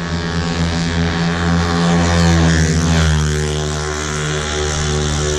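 Racing Yamaha Mio scooter engines at high revs, running flat out down a drag strip, with a steady high-pitched buzz. They sweep past close about halfway through.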